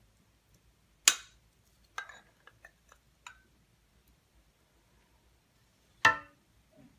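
A serving spoon clinking against dishes as chopped apple is spooned into a bowl of custard: two sharp clinks, about a second in and near the end, with a few lighter taps between.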